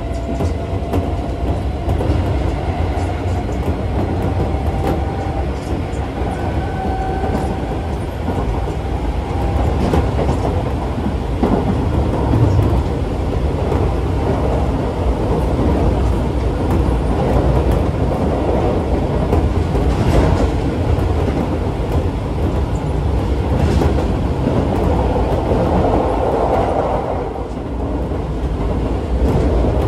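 Keisei 3400 series electric train running at speed, heard from inside the car by the doors: a steady rumble of wheels on rail, with the clickety-clack of occasional rail joints.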